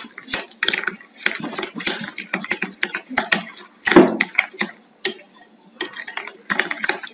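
A metal spoon stirring thick mashed palm pulp with sugar and salt in a glass bowl, clinking and scraping against the glass over and over. A louder knock comes about four seconds in, followed by a short pause in the stirring.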